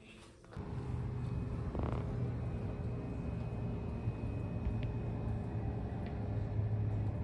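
Steady car noise, engine and road hum as if riding in a moving car, coming in suddenly about half a second in.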